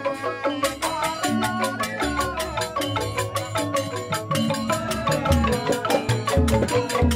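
Balinese joged bumbung gamelan playing: bamboo xylophones (grantang) struck in fast, dense mallet patterns, with low kendang drum strokes underneath.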